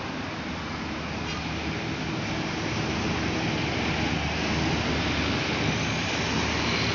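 Road traffic led by an intercity coach bus, with a minibus alongside, driving past on a highway climb: a steady engine drone mixed with tyre and road noise that grows louder toward the end.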